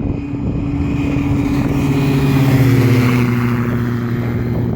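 Cessna 172 on its takeoff run at full power, engine and propeller droning as it passes. It grows loudest about halfway through, and its pitch falls as it goes by.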